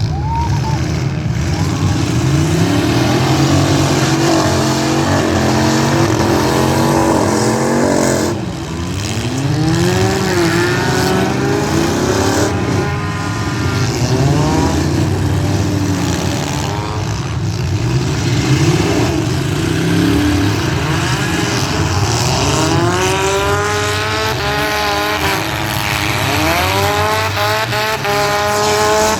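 Many street stock cars' engines running and revving hard together in a demolition derby heat, overlapping engine notes rising and falling as the cars accelerate and back off. The revving is densest near the end.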